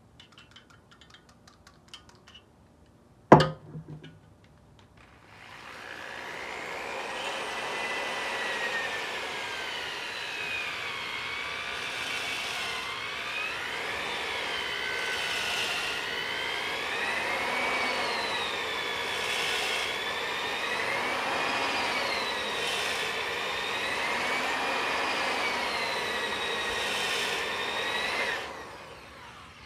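Corded electric drill spinning a Flex-Hone ball hone inside a cylinder bore of a Honda D15B engine block, running for about 23 seconds. Its whine wavers up and down in pitch every couple of seconds as the hone is stroked in the bore. A sharp click comes a couple of seconds before the drill starts.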